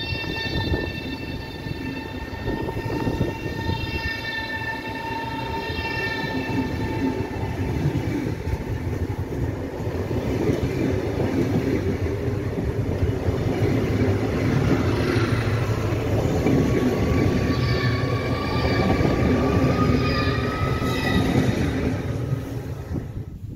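PKP Intercity ED250 Pendolino electric train pulling away from the platform, its wheels rumbling on the rails over an electric whine. The whine first holds steady tones that fade, then new tones rise in pitch as the train picks up speed. The sound grows louder and ends abruptly at the very end.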